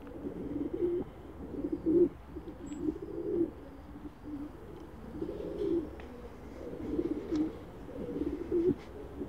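Pigeons cooing, one throaty coo after another about once a second.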